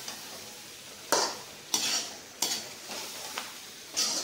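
Perforated metal spatula stirring brinjal and drumstick pieces frying in oil in a metal kadai: a low sizzle with about five scraping strokes of the spatula against the pan, the first about a second in.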